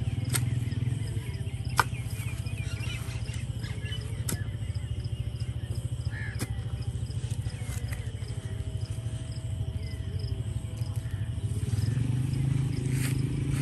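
Short-handled hoe chopping into a soil mound: a few separate knocks a couple of seconds apart, the sharpest about two seconds in. A steady low hum and birds chirping go on underneath.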